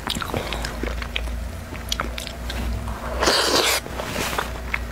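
Close-miked eating of a soft mango pudding from a spoon: wet mouth clicks and chewing, with a short, louder slurp a little over three seconds in.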